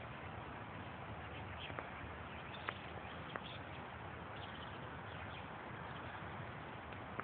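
Steady outdoor background noise with a couple of faint clicks near the middle.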